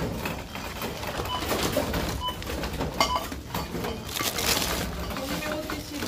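Supermarket checkout ambience: a background hum of shoppers and movement, with two short checkout-scanner beeps about a second apart and a sharp knock about halfway through.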